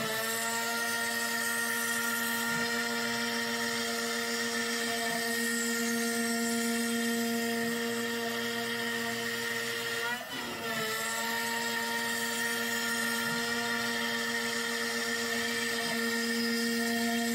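NymoLabs NBX-5040 CNC router spindle running at 12,000 rpm with a steady whine as the bit mills a pocket in MDF. The whine falters briefly about ten seconds in, then carries on.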